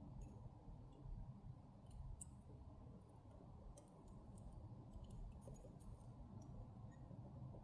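Near silence over a low steady hum, with faint scattered small clicks, more of them in the second half, from fine tools touching the watch bridge and wheel train as the pivots are eased into their jewels.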